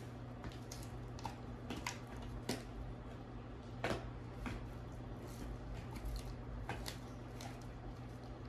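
Belgian Malinois gnawing a hard chew bone: irregular crunches and clicks of teeth on bone, with louder ones about two and a half and four seconds in, over a steady low hum.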